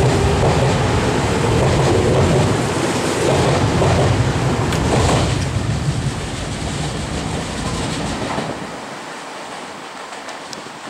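Nagoya Municipal Subway N3000-series electric train pulling out and running away along the track, with rumbling and clattering wheels. It is loud for the first five seconds, then fades steadily into the distance.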